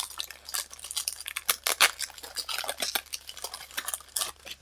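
Pokémon trading cards and their foil booster-pack wrappers being handled: a run of quick small clicks, taps and rustles as the cards are flicked through.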